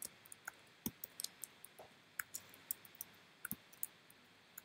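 Computer keyboard keys clicking faintly as someone types: a string of short, irregular taps.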